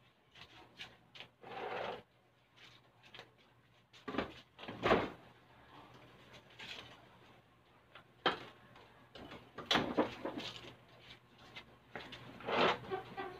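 Scattered knocks, clunks and rustling from a motorcycle being handled during cleaning, with the loudest thumps about five and ten seconds in.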